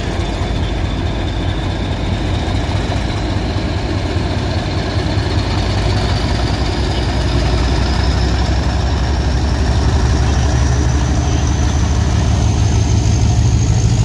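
Class 50 diesel locomotive's English Electric 16-cylinder engine running as the locomotive passes at low speed: a deep rumble that grows louder as it draws level, with a thin high whine climbing steadily in pitch.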